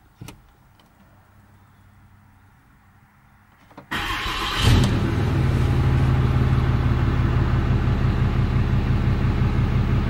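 Cummins diesel pickup engine cranking for under a second and firing about four seconds in, then settling into a steady, evenly pulsing idle. It is running on a freshly installed replacement ECM.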